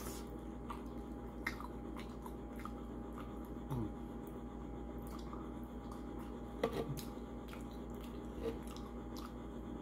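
A man chewing pizza toppings picked off with his fingers, with scattered small clicks over a steady low hum.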